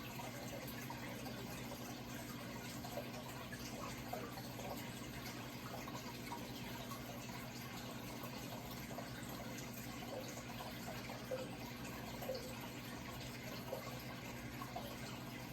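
Running water trickling steadily, with small drips and splashes scattered through it, over a low steady hum.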